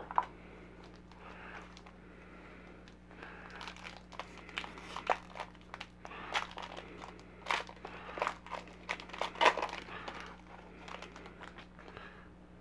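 Foil trading card pack torn open by hand: a run of sharp crinkles and rips that builds through the middle and dies down near the end.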